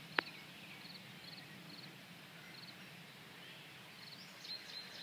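Small birds chirping: a short, high trilled chirp repeats about once a second, with other quick calls joining near the end. A single sharp click sounds just after the start, over a faint steady low hum.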